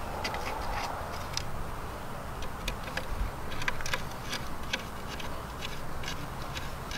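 Hex key turning the mid-length bolts that hold the rear wing onto a windsurf foil's fuselage: irregular light clicks, a few a second, as the key works in the bolt heads.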